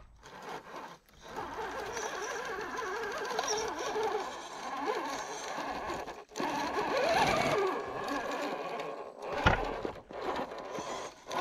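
Electric RC rock crawler's motor and geartrain whining as it crawls up rocks, the pitch rising and falling with the throttle. There is a sharp knock near the end.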